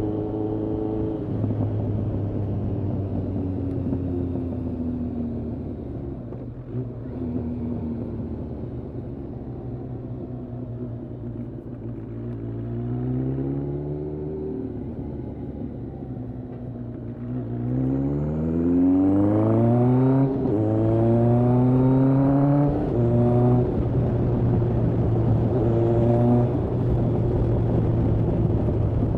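Kawasaki ZRX1200R inline-four engine on Yoshimura TMR-MJN carburettors, heard from the moving bike. Engine speed eases off, rises and drops briefly near the middle, then revs up hard through two gear changes and settles to a steady cruise near the end.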